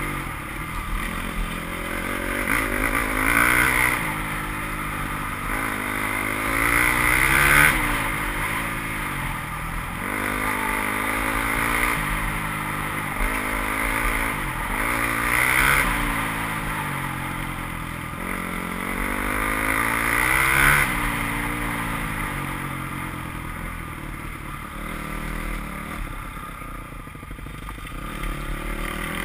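Dirt bike engine heard from on board while riding a gravel trail, its pitch climbing over a couple of seconds and then dropping, again and again every few seconds as the rider accelerates and backs off.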